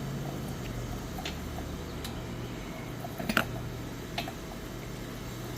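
A few light, irregular clicks and taps of the wheel's hardware being handled on the axle, the sharpest about three and a half seconds in, over a steady low hum.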